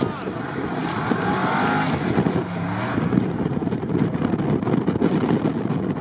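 Mercedes G-Class engine working hard under load as the SUV ploughs through deep snow, its pitch rising briefly about a second in, mixed with wind buffeting the microphone.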